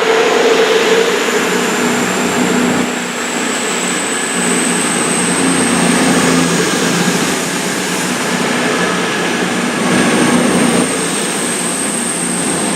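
Two CrossCountry Voyager diesel-electric multiple units, a Class 220 and a Class 221, pulling out together, their underfloor diesel engines running under power as they accelerate away. A thin high whine rises slightly throughout.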